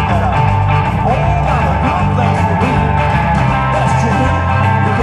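Live blues band playing a boogie: electric guitar, bass guitar and drums, with an amplified blues harmonica played through a hand-held microphone, its notes bending up and down over the rhythm.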